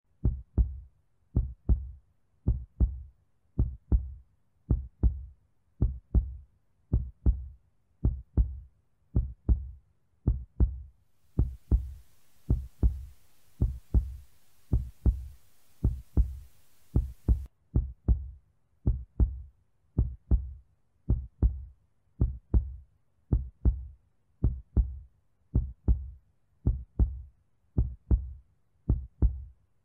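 Heartbeat sound effect: a steady lub-dub double thump, repeating a little faster than once a second. A faint hiss comes in for several seconds midway.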